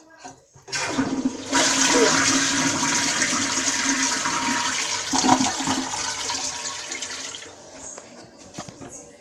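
A toilet flushing: a click about a second in, then a loud rush of water that runs for several seconds and tapers off as the bowl drains.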